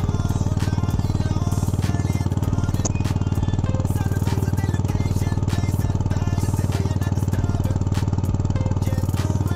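TVS Apache RTR 160 4V single-cylinder engine idling steadily, its exhaust note coming from the twin-outlet muffler, with background music over it.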